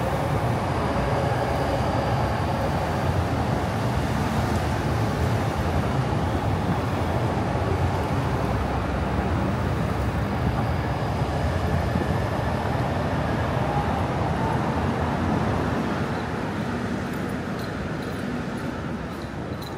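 Steady city road traffic noise, a continuous rumble and hiss that eases off over the last few seconds.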